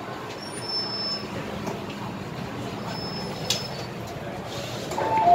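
MTR M-Train electric multiple unit running slowly with a steady rumble, with two faint, brief high squeals. Near the end a loud two-tone door chime starts as the train stops and its doors open.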